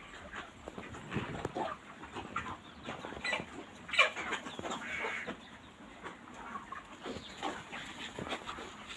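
A flock of chickens in a poultry shed, many short calls and clucks overlapping, with one louder call about four seconds in.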